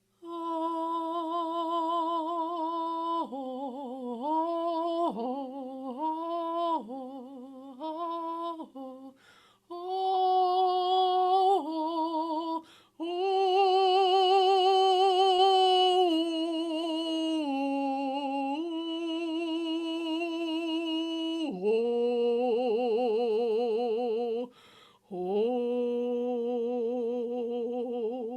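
A single voice toning long, held wordless notes with a wide vibrato, in phrases separated by short breaths; the pitch steps lower about two-thirds of the way through.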